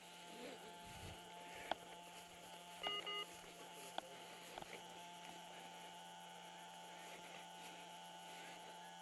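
Two short electronic beeps about three seconds in, over a steady low electrical hum, with a few sharp clicks before and after.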